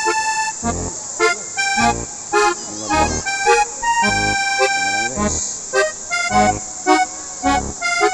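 Background music with a steady beat and a held, accordion-like melody.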